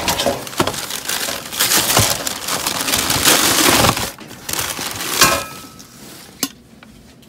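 Crinkled packing paper rustling and crackling as a wrapped item is pulled out of a cardboard box and unwrapped. Two sharp knocks come about five and six and a half seconds in, and then the rustling dies away.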